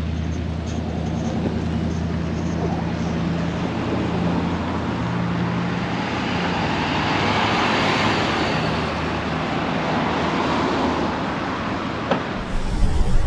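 Road traffic: a low engine hum, then a motor vehicle passes, loudest about two-thirds of the way through.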